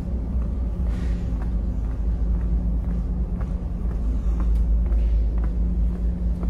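Steady low rumble of the ferry's engines, heard from inside the passenger cabin, with light footsteps at a walking pace on the hard floor.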